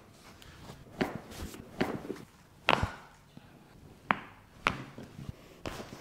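Handling sounds during a chiropractic treatment: about six sharp clicks and knocks, unevenly spaced, the loudest a little before the middle.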